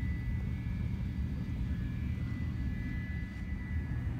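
Jet airliner engines running at taxi power, heard muffled through terminal glass: a steady low rumble with a thin, high whine held on one pitch.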